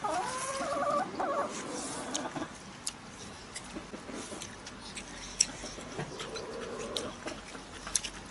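A toddler's high-pitched wavering vocal sound for about two seconds, rising in pitch, followed by scattered light clicks of eating utensils on dishes.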